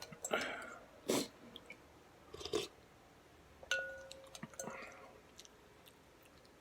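Close-up eating sounds: a person chewing and biting mouthfuls of pho in several separate bursts. About four seconds in, a utensil lightly clinks against the bowl and rings.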